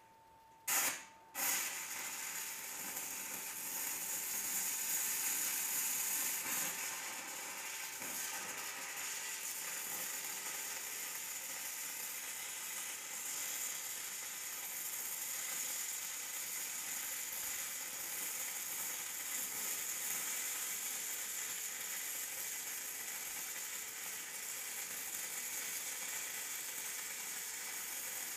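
Stick-welding arc from a 3/32-inch 6010 electrode at 80 A DCEP: struck with two sharp pops about a second in, then crackling steadily as the bead is run.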